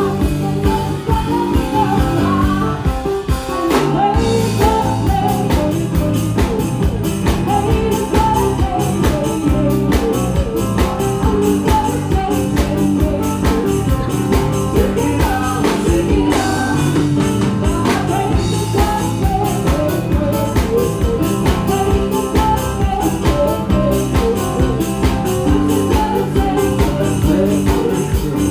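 Live band playing: a woman singing lead into a microphone over drum kit and keyboard.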